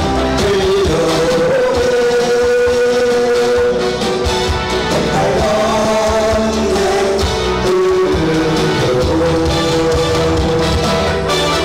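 Song with a singing voice holding long, wavering notes over a band backing of bass and drums with a steady beat.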